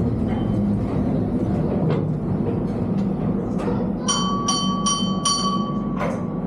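Underground mine tour train running on its rails, a steady low rumble with scattered clicks. About four seconds in, a high ringing tone sounds for about two seconds, its upper ring pulsing four times.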